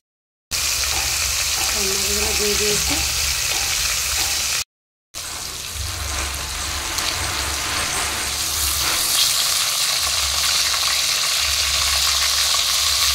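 Turmeric-coated boal fish pieces sizzling as they fry in hot oil in a kadai, moved about now and then with a wooden spatula. The sizzle drops out twice for a moment, near the start and about five seconds in.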